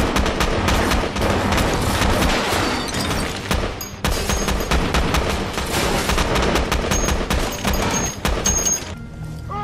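Rapid automatic rifle fire in a film firefight, shots packed densely and overlapping without a break, dying away near the end.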